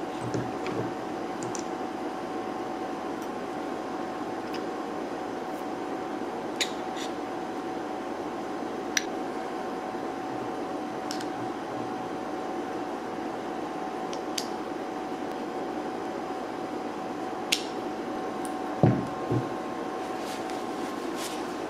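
Light metal clicks and taps as greased planer transmission gears and pins are handled and fitted onto the gearbox plates, scattered a few seconds apart, with a heavier thump about two-thirds of the way through. A steady hum runs underneath.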